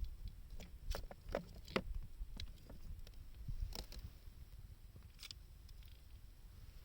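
Wood fire crackling, with scattered sharp pops and snaps, more of them in the first couple of seconds, over a steady low rumble.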